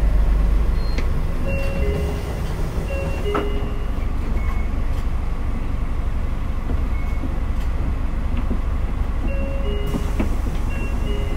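Mitsubishi Fuso (MBM) KL-MP37JK city bus heard from inside the cabin while under way: a steady low engine and road rumble, easing slightly about two seconds in. A few short, high-pitched tones sound over it.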